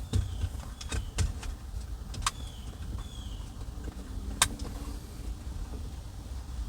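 Scattered sharp plastic clicks and taps, about five of them with the loudest about four and a half seconds in, from handling the power window switch and its wiring connector while fitting it into the door trim.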